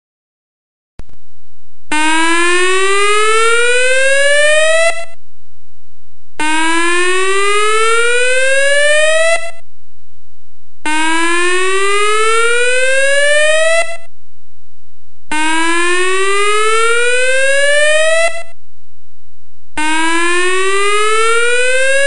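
Whelen electronic outdoor warning siren sounding a repeated rising tone: five sweeps, each climbing steadily in pitch for about three seconds and then cutting off sharply, with a low hum in the short gaps between them.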